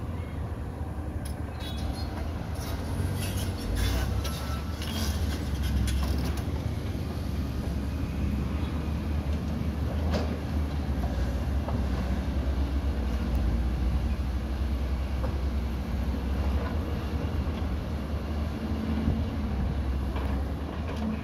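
Heavy excavator diesel engines running with a deep, steady rumble. Metallic clanks and rattles come through in the first six seconds or so, and a single sharp clank about ten seconds in.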